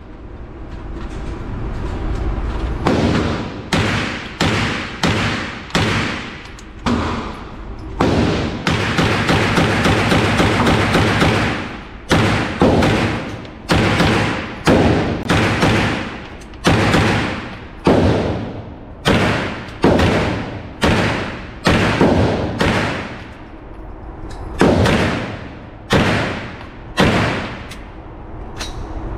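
A gun fired one shot at a time, about one a second, each shot echoing briefly off the walls of an indoor range. About a third of the way in, a few seconds of continuous loud noise covers the shots.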